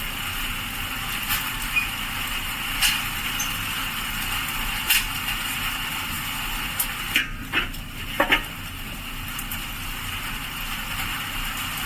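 Charcoal briquettes in a Weber charcoal kettle grill, clinking and knocking sharply a few times, with a small cluster of knocks late on, over a steady hiss.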